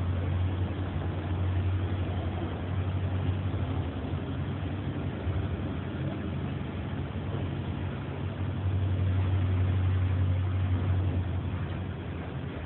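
Diesel railcar's underfloor engine droning low, heard inside the carriage along with the train's running noise. The drone swells in the first few seconds and again about nine to eleven seconds in.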